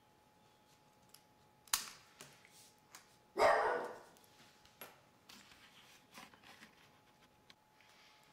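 Faint clicks and taps of fingers and a small screwdriver working the ribbon-cable connectors on a digital camera's circuit board, over a faint steady whine. About three and a half seconds in comes one short, louder pitched call, like a bark.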